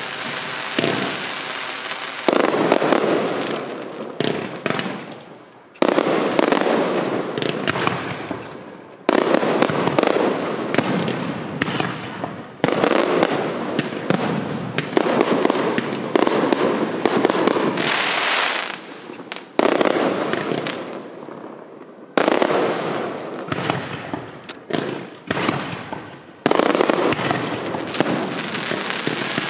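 Aerial fireworks going off in repeated salvos of bangs and crackle. Each volley starts suddenly and fades over a few seconds before the next one hits.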